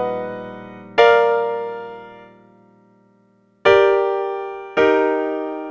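Piano chords struck one at a time and left to ring and fade. One chord about a second in dies away almost to silence, then two more follow close together near the end.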